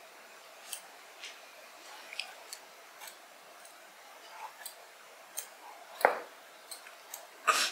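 Vegetable peeler held in a hand brace scraping the skin off a potato in short, irregular strokes, with soft clicks between them. There are two louder knocks, one about six seconds in and one near the end.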